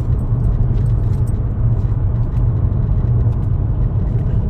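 Steady low rumble of a 2020 Hyundai Elantra driving, heard from inside the cabin: road and engine noise with no sign of a misfire.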